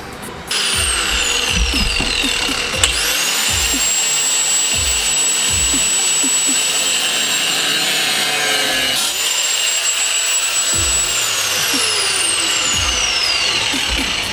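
Angle grinder with a cut-off disc cutting through steel angle bar. The motor's whine rises to a steady high pitch, breaks off briefly about nine seconds in and picks up again, then falls away over the last few seconds as the disc winds down.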